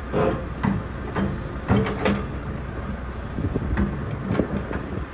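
Komatsu PC210 hydraulic excavator's diesel engine running steadily, with a string of sharp metallic clanks and knocks as the arm and bucket move, about seven over the few seconds.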